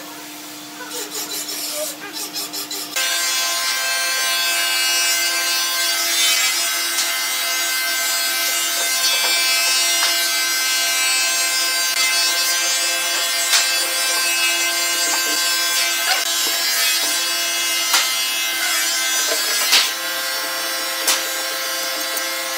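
Woodworking machinery in the shop running steadily, a constant whine of several pitches that sets in abruptly about three seconds in. Before that, a short rhythmic scraping, and a few sharp knocks of wood being handled later on.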